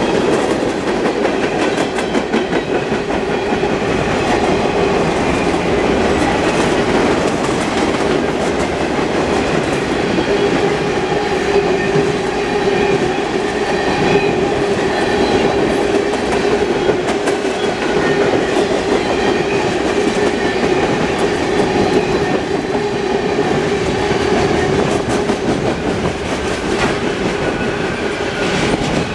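A CSX manifest freight train's cars rolling steadily past, wheels clacking over the rail joints. A continuous whine from the wheels on the rail runs underneath.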